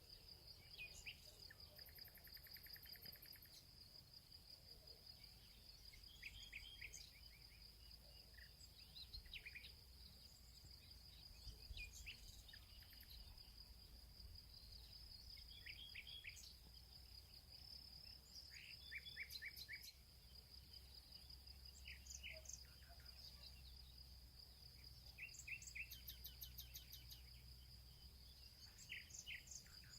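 Faint steady insect trill, cricket-like, with scattered short bird chirps.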